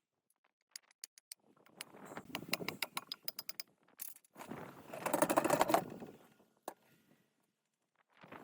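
Small metal parts and hand tools clicking and clinking in quick, irregular taps, then a rough scraping sound lasting about two seconds midway, followed by a few more clicks.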